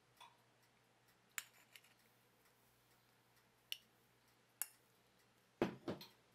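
A handful of sharp metal taps and clicks from a mesh flour sieve being handled and knocked over a stainless steel mixing bowl while cake flour is sifted in, with the loudest pair near the end.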